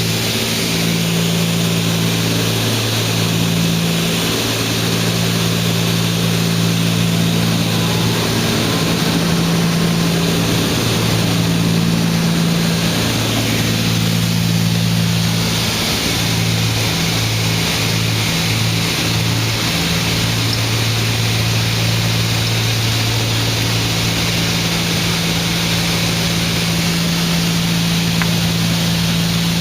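Cessna 310's twin piston engines and propellers droning steadily inside the cabin on approach. Past the middle, the drone pulses in a slow beat for a few seconds, then steadies again.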